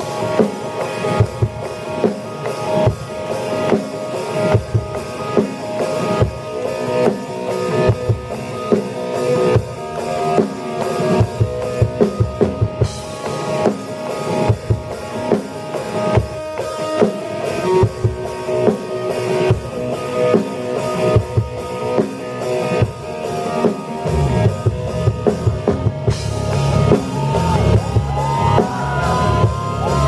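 Rock band playing live: a Yamaha drum kit with steady kick and cymbal hits, electric bass and electric guitar. The low end grows fuller about two-thirds of the way in, and a high sliding melody line comes in near the end.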